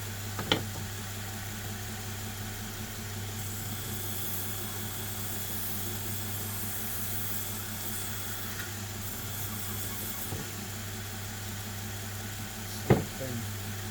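Belt sharpener's electric motor running with a steady hum. A faint high hiss comes in for a few seconds in the middle, and there are two sharp knocks, one about half a second in and one near the end.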